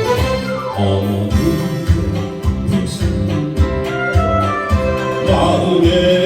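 Instrumental intro of a Korean polka song: backing music with a steady bouncing beat under sustained melody lines.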